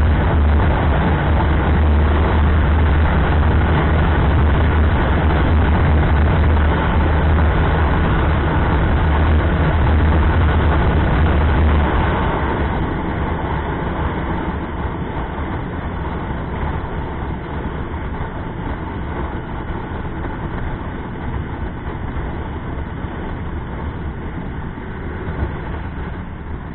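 Wind rushing over the microphone of a TVS Apache RTR 160 motorcycle at highway speed, mixed with the steady drone of its single-cylinder engine. About twelve seconds in, the deep rumble eases and the sound gets quieter as the bike slows a little.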